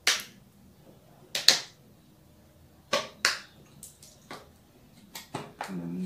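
Sharp, irregular clicks and knocks of plastic bottles being handled and set down on a bench while oil is poured into water, about eight to ten in all; the loudest comes about a second and a half in.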